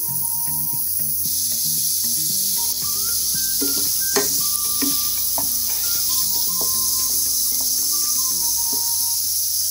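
Minced beef frying with onion and garlic in a pan: a steady, high sizzle that grows fuller about a second in. A wooden spatula stirs and scrapes the meat, knocking against the pan a few times around the middle.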